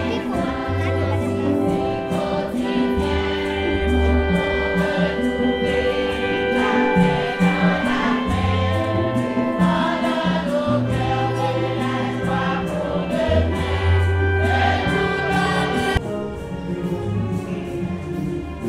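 A choir singing a hymn over instrumental accompaniment with deep bass notes and a steady beat. The sound drops abruptly in level about sixteen seconds in.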